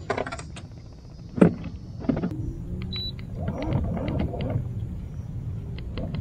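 Boat's electric trolling motor running, a steady low hum that comes in about two seconds in while the boat creeps forward. Two sharp knocks come before it, one at the start and one about a second and a half in.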